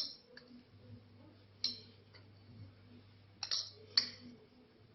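A few light clinks and taps of a kitchen utensil against a glass jar as the remedy is put into it, four short ones spread over a few seconds.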